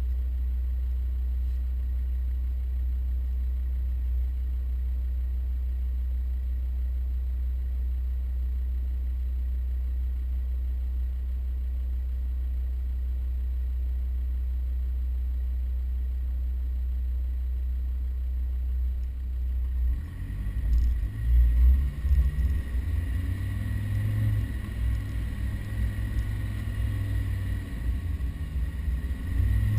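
A steady, unchanging low rumble for about the first twenty seconds, then the uneven rumble of a Land Rover Defender 110 driving over sand dunes, the engine rising and falling, with a faint steady high whine.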